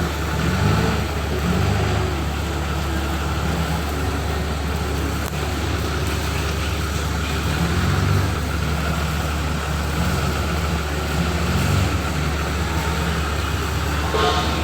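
A vehicle engine running steadily at idle, a low drone, with a brief higher-pitched sound near the end.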